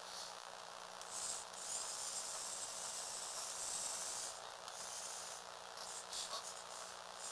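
Small electric motors and plastic gears of a Lego Technic four-wheel-drive car whirring as it drives, a thin hissy sound that grows louder for about three seconds from about a second in.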